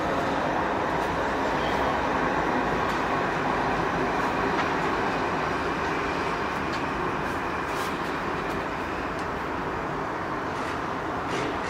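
Steady background noise of city road traffic, an even continuous rush with no distinct events.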